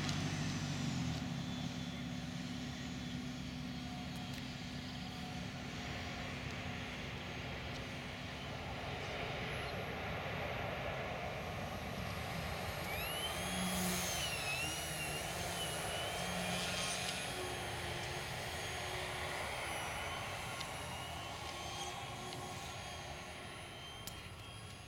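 Aeroworks SU-31 radio-controlled aerobatic model plane flying past overhead: a steady engine-and-propeller drone that swells and fades as it passes, loudest about halfway through and dropping away near the end.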